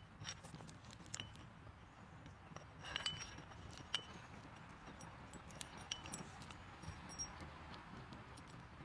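Machined aluminium slingshot parts clicking and clinking against each other as they are handled and fitted together, a string of light metallic taps with a short ring, the sharpest two about three and four seconds in.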